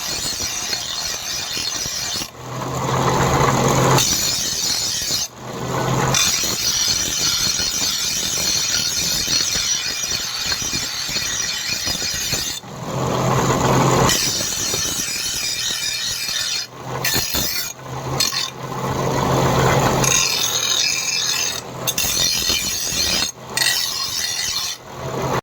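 Steel leaf-spring blade being worked with an abrasive tool: a steady harsh rasping hiss of metal being abraded. A lower hum joins in several times, for a second or three each.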